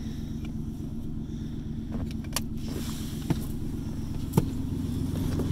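Low steady hum of the Ford F-150's 5.0 L V8 idling, heard inside the crew cab. Three sharp clicks come in the middle and near the end, the last the loudest.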